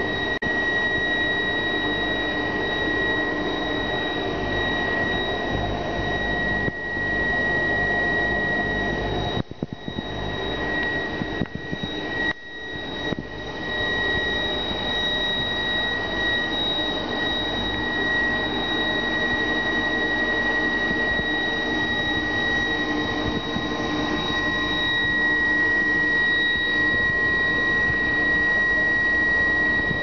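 Microwave drying rig with a centrifugal blower running: a steady whir under a constant high-pitched whine. The sound dips briefly a few times about ten seconds in.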